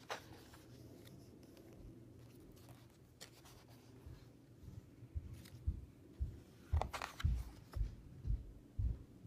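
Pages of a large softcover book being turned by hand: paper rustling, with a sharp flip at the start and further brief flips later. In the second half, low dull thuds come about twice a second from handling.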